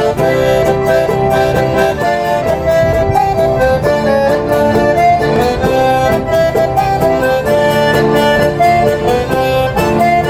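Accordion-led traditional music with a steady beat.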